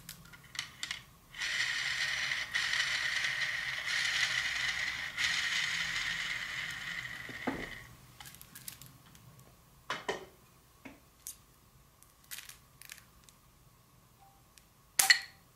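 Arrow with a Simmons Landshark broadhead spinning on an arrow spinner: a steady whir from the spinner's rollers for about six seconds, then dying away. This is the spin test for broadhead and shaft wobble. A few light clicks and taps follow, then one sharp knock near the end.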